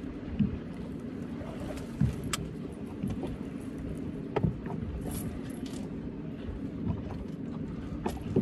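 Steady low hum of a boat motor, with scattered knocks and light clinks as a blue catfish and the tackle are hauled over the side of the boat.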